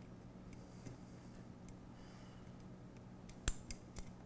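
Small metal clicks and ticks from M3 nylock nuts being finger-threaded onto hex cap bolts through a metal C-channel. A few sharper clicks come about three and a half and four seconds in. A faint low hum runs underneath.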